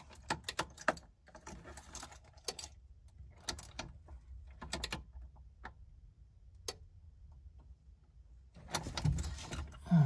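A key ring jangling and clicking in small bursts as the ignition key is handled. The light metallic jingles and ticks come in scattered clusters and grow busier near the end.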